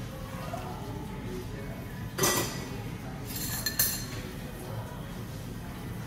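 Stainless-steel cocktail tins and barware clinking on the bar: one sharp metallic clink with a short ring about two seconds in, then a brief rattling clatter just before four seconds.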